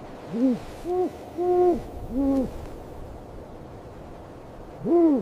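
Snowy owl hooting: four short hoots in quick succession, each rising and then falling in pitch, then a pause and a fifth hoot near the end.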